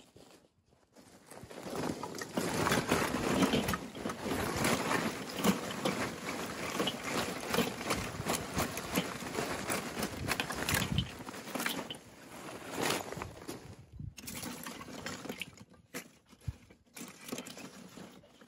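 Big chunks of ash-wood lump charcoal poured from a sack onto the charcoal grate of a steel kettle grill: a dense clattering rattle of many lumps knocking together and against the metal. It thins out near the end to a few single knocks as pieces are set in place by hand.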